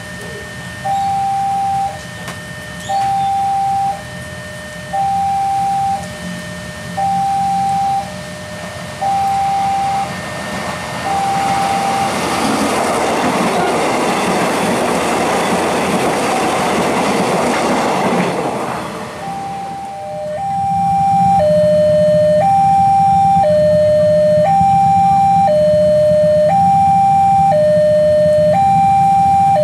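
Railway level-crossing warning alarm sounding in two alternating tones, each held about a second. From about twelve seconds in, a KRL electric commuter train rushes past for several seconds and nearly drowns the alarm. From about twenty seconds the alarm returns louder over a low steady engine hum.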